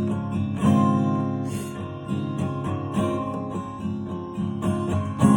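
Acoustic guitar playing the song's intro, chords struck and left to ring out and fade between strokes.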